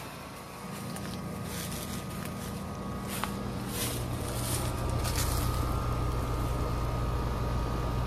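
Trane XR heat pump outdoor unit running in heating mode: a steady low hum from the compressor and condenser fan, with a faint steady whine above it. The hum gets a little louder about three seconds in.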